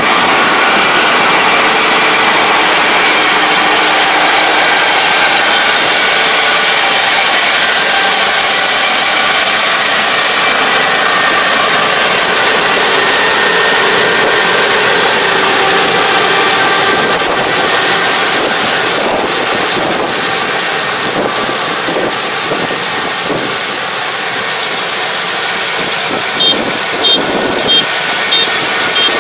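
Kubota DR575 five-row combine harvester's diesel engine and threshing machinery running steadily while cutting rice, a continuous dense mechanical din that grows somewhat quieter after about halfway as the machine moves away. Near the end a high electronic beep repeats several times.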